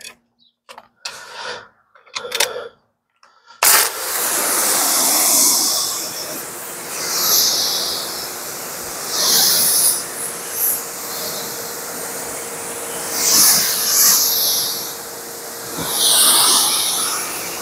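Water spraying onto a car to rinse off soap suds. The spray starts suddenly about four seconds in, then hisses steadily, swelling and easing several times as it sweeps over the panels.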